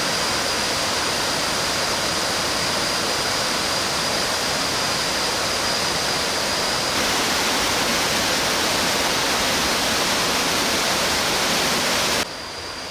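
Heavy rush of water pouring over a tiered limestone waterfall in strong rainy-season flow, a steady dense sound of falling water. It gets a little louder about seven seconds in and drops off sharply just before the end.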